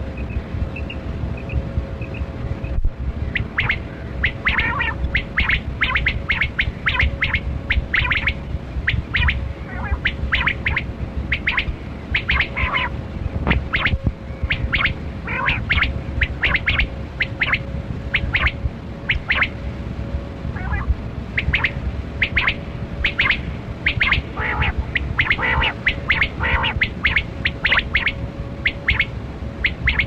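Rain quail (black-breasted quail, 'kali kirak') calling: many short, sharp notes, single and in quick runs of two or three, coming thick from about three seconds in, over a steady low hum.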